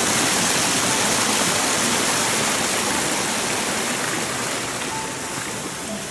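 Floodwater from heavy rain rushing over a paved path: a loud, steady rush of water that eases a little near the end.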